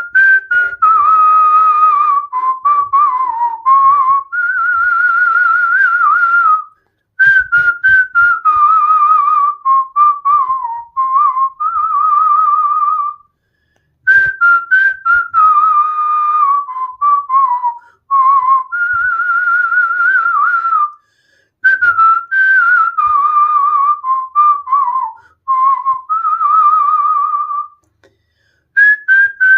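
A whistled tune: one descending, wavering phrase repeated four times with short pauses between, and short clicks among the notes.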